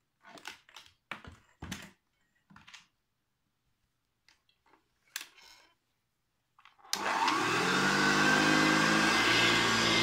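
Short clicks and knocks as the cord is unhooked from the handle of a 1958 Hoover Junior 1334 upright vacuum cleaner. About seven seconds in the vacuum is switched on: its motor starts suddenly with a whine that rises as it runs up to speed, then runs steadily and loudly.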